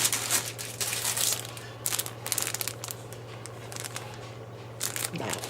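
Thin plastic bags crinkling and rustling in irregular bursts as model-kit parts runners are handled, with small clicks, over a steady low hum.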